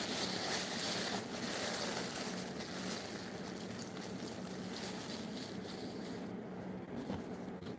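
Steady background hiss with a faint low hum, with a few soft rustles of handling in the first second or so; the hiss thins out near the end.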